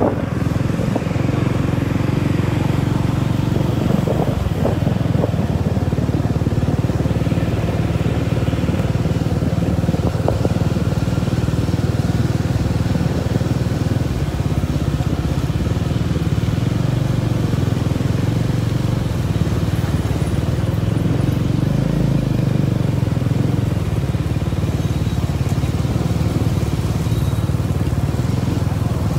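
Steady low rumble of motorcycle engines and road noise while travelling down a street among a group of motorbikes.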